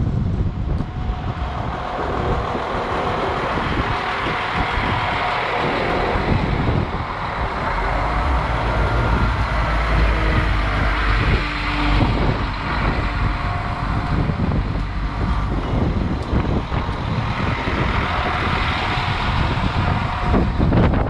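Irish Rail 22000 class diesel multiple unit passing close by: a steady rumble of its underfloor diesel engines and its wheels on the rails as the carriages go past, the rumble deepening for a few seconds around the middle.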